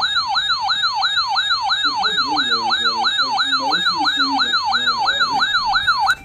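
Electronic siren yelping, its pitch rising and falling rapidly about four times a second, then cutting off abruptly near the end.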